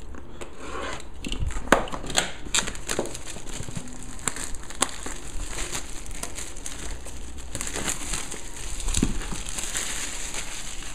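Clear plastic shrink wrap being peeled off a cardboard box and crumpled in the hand: continuous crinkling with irregular sharp crackles.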